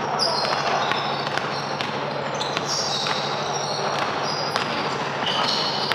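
Basketball game play on an indoor court: the ball bouncing with scattered sharp knocks, among short high sneaker squeaks and a steady background of players' noise.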